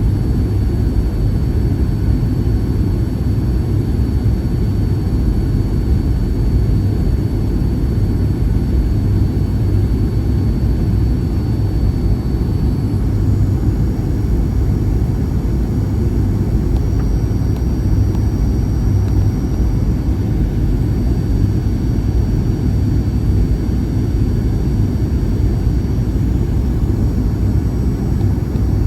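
Steady cabin noise aboard a Boeing 737-800 in flight: a loud, even rumble of airflow and its CFM56 jet engines, with faint thin high whines above it.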